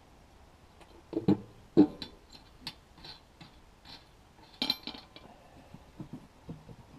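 Light metal clinks and knocks of hands working on a V8's air cleaner, unscrewing its wing nut and handling the lid and housing, with the engine not running. A few sharper knocks come about a second in and near two seconds, then lighter ticks and another cluster of clinks near five seconds.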